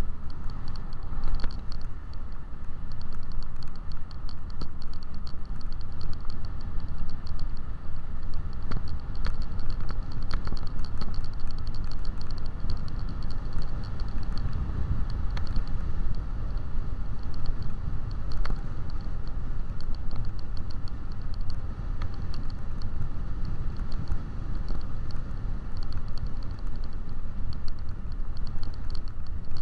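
Motor scooter riding along a road: steady wind buffeting on the camera's microphone with low road rumble and scattered small rattles and ticks, and a faint steady high whine underneath.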